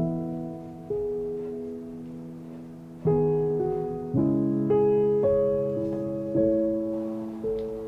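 Soft solo piano background music: chords struck one after another, each left to ring and fade.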